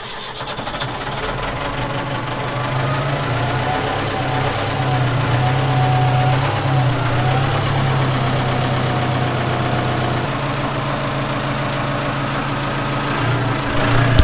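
Ford 755 backhoe's diesel engine running at full throttle just after being started on starting fluid. Its speed picks up over the first couple of seconds, then holds steady, with a faint wavering whine above the engine note.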